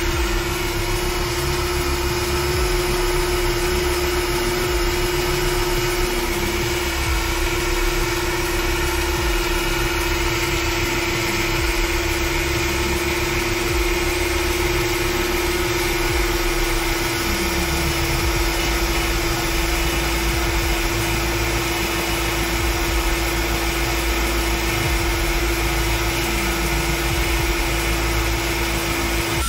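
Makita 700C router spindle on a CNC machine running at a steady pitch during a hole-boring cut, with the cutter working through the sheet. The whine holds constant with no change in speed.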